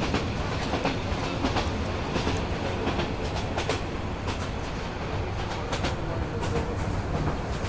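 Passenger train running at speed: a steady running noise with irregular clacks and knocks throughout.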